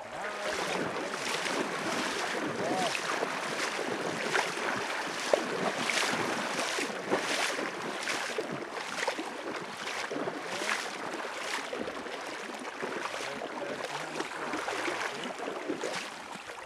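Steady rushing noise of river water and wind on the microphone, with irregular sharper surges about every second.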